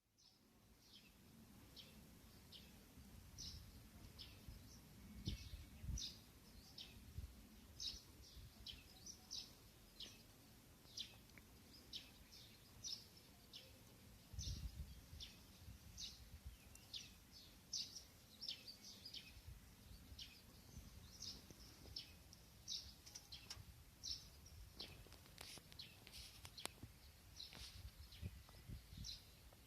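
Small birds chirping: short, high chirps repeating irregularly, about two a second, over a faint low background rumble.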